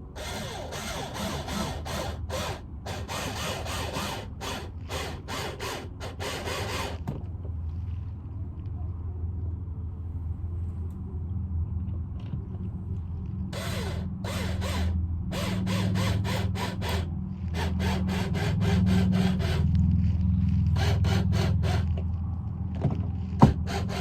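Mounting screws for a Ring video doorbell being driven in, with rapid runs of clicking from the tool in two long spells over a steady low hum. A single sharper click comes near the end.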